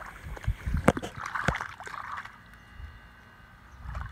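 Shallow stream water splashing and sloshing under wading feet, with a couple of sharp clacks in the first two seconds, then quieter for about a second and a half before the splashing picks up again.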